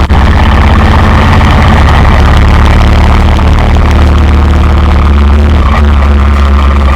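Motorcycle engine running steadily and loud.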